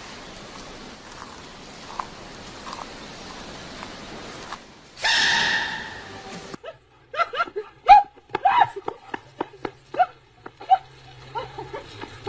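Giant panda cub's sneeze, a loud high squeak about five seconds in, over a faint steady hiss. Then many quick, short dog barks and yelps with clicks.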